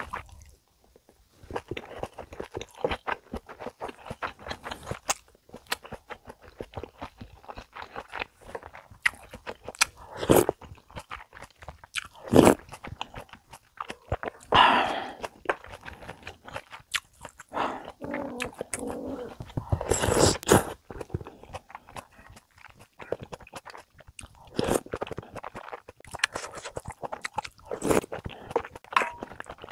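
Close-miked eating sounds of budae-jjigae with ramen noodles and ham: chewing, with wet mouth clicks and a handful of louder moments.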